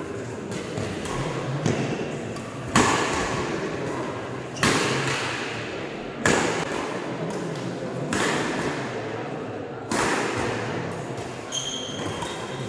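Badminton rackets striking the shuttlecock in a doubles rally: sharp smacks about every two seconds, each echoing through a large hall. A brief high squeak comes near the end.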